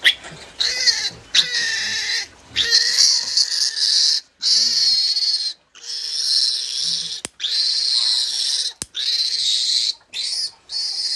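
Newborn piglet squealing loudly and shrilly in a run of screams, each about a second long, with short breaks between, as it is held and has its teeth clipped.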